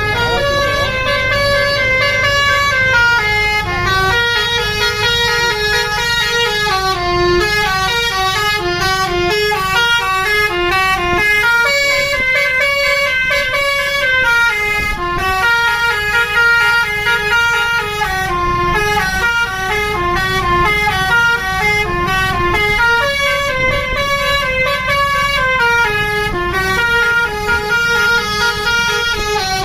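A bus's 'telolet basuri' multi-tone musical horn playing a continuous melody of stepping notes, one phrase coming round again about every eleven seconds, over a low engine rumble.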